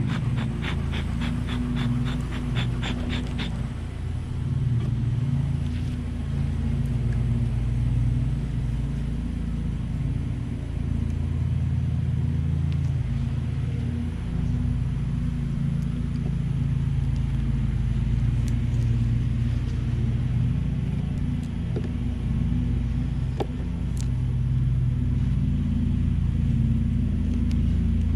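A beekeeper's smoker being puffed in a quick run of short whooshes, about four a second, for the first few seconds. Then the steady low hum of a honeybee colony in an opened hive, with a few small clicks of the hive being worked.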